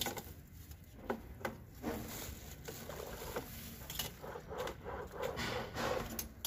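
Steel mesh range hood filters being moved about in a bucket of hot caustic soda solution. A handful of sharp knocks and scrapes as the metal frames hit the bucket, with water sloshing around them.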